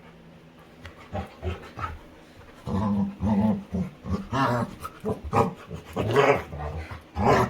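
A Labrador retriever making a run of short playful vocal noises, starting about two and a half seconds in.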